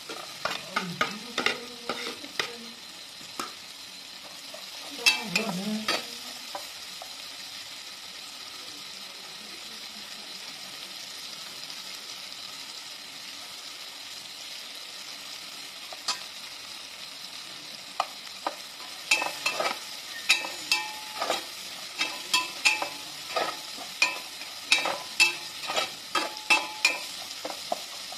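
Chopped lemongrass, chillies and garlic sizzling in an aluminium pot, with a steady frying hiss. A metal ladle stirring scrapes and clinks against the pot in bursts in the first few seconds and again through the last third.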